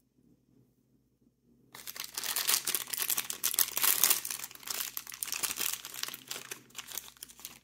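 Toy packaging wrapper crinkling and tearing as a figure is unwrapped, starting about two seconds in after a near-silent moment.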